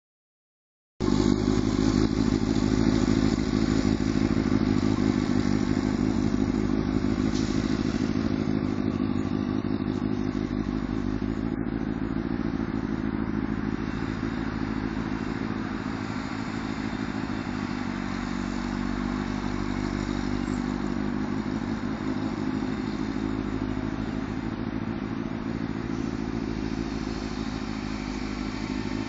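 Motorcycle engine running at low, fairly steady speed during slow cone-weaving maneuvers. It starts about a second in, loudest while the bike is close, and gets slightly quieter as it moves off across the lot.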